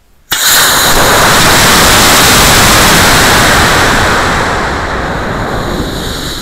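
Estes Taser model rocket's black-powder motor igniting with a sudden loud hiss about a quarter second in, heard from the camera riding on the rocket. The steady rushing hiss holds for a few seconds, then slowly fades as the rocket climbs.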